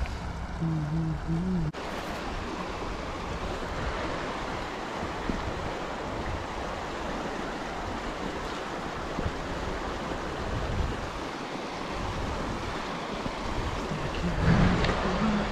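Steady rush of a shallow mountain river flowing over a rocky bed. A low voice-like sound is heard briefly at the start and again near the end.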